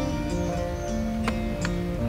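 Background music: sustained notes that step from one pitch to the next every half second or so, with two short clicks about a second and a half in.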